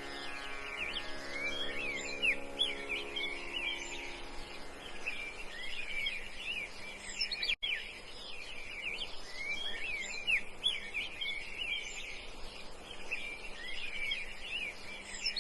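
Many small birds chirping together in a dense chorus of short, overlapping calls that rise and fall in pitch, over a steady low hum. The tail of a held music chord fades out over the first few seconds, and the sound cuts out for an instant about halfway through.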